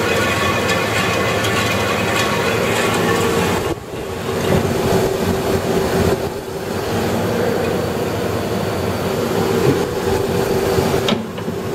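Vectrax 20-inch vertical band saw running, its drive making a steady mechanical hum with clatter while the variable speed is changed on the fly. The level dips briefly about four seconds in and again near the end.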